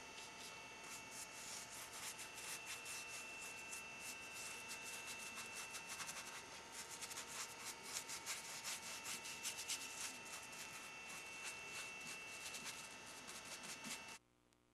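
A paintbrush stroking paint onto a carved wooden snake: a quick run of soft brushing scrapes over a faint steady high whine. The sound cuts off abruptly near the end.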